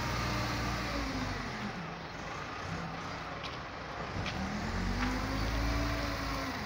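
Caterpillar wheel loader's diesel engine working as the machine digs into a sand pile and lifts the bucket. The engine note sinks over the first couple of seconds, then rises again about two-thirds of the way through to a hard-working, higher rev as the full bucket is raised.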